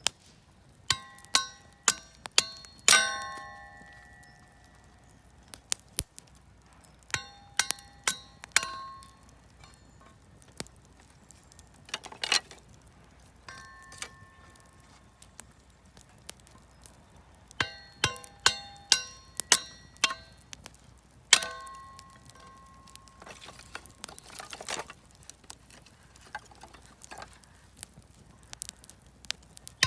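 Repeated sharp metallic clinks, each with a short ringing ping at the same few pitches, coming in clusters a few seconds apart.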